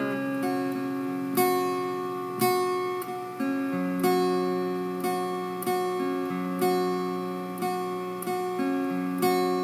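Instrumental break in a song: acoustic guitar chords, each struck and left to ring out, about one a second, with no singing.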